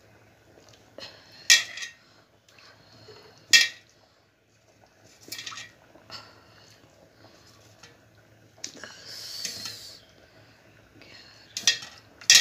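Kitchen utensils clinking against pots and dishes as fish pieces are added one by one to simmering curry gravy in an earthenware pot: several sharp, ringing clinks a second or two apart, with a short hiss about nine seconds in.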